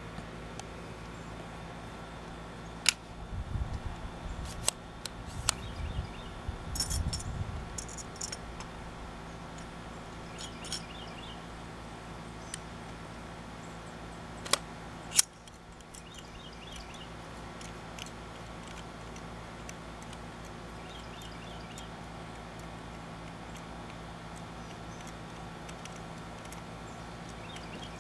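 Metal parts of a Paratus takedown rifle being handled and clicked together by hand: a few sharp metallic clicks and knocks with low handling bumps over the first eight seconds, and two louder clicks about fifteen seconds in, over a steady hum.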